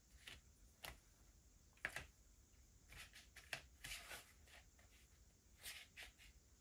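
Faint, irregular scratching strokes of a drawing tool on paper: about ten short strokes with pauses between, the sharpest about two seconds in.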